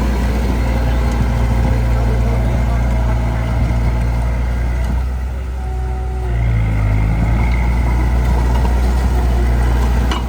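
Heavy diesel engine of earthmoving equipment running steadily. A little past the middle it eases off briefly, then picks up again.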